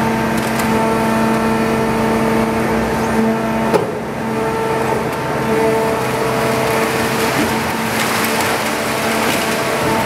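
Scrap baler's hydraulic power unit running with a steady hum of several pitches. Scrap metal clatters into the hopper as the grapple drops its load, with one sharp knock a little under four seconds in.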